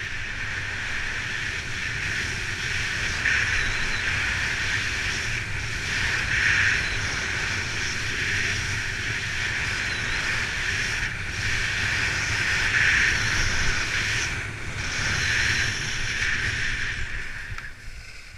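Skis sliding and scraping over packed, groomed snow at speed, with wind rushing over the camera microphone; the hiss swells every few seconds. It dies down near the end as the skier slows to a stop.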